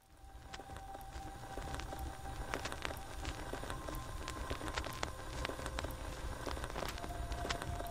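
A steady crackling hiss full of scattered sharp clicks over a low rumble, fading up at the start, with a few faint held tones that step to new pitches now and then.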